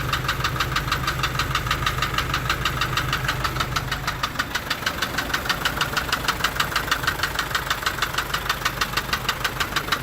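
Isuzu engine running with a regular sharp noise repeating about four to five times a second and never stopping. The cause of the noise is not yet known. A low hum beneath it fades about four seconds in.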